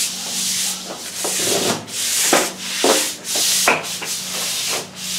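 Small stiff-bristled broom scrubbing wet stamped concrete in repeated strokes, brushing a water-based colour wash into the texture and joints.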